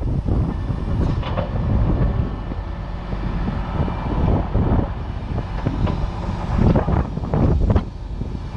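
Heavy truck engine rumbling steadily, with a few sharp metallic clanks, one about a second in and several near the end.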